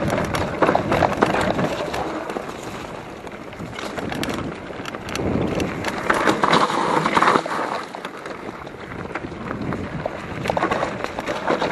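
Mountain bike rolling fast down a rough dirt trail: tyres on the ground, with many irregular sharp knocks and rattles from the bike jolting over bumps, coming and going in louder patches.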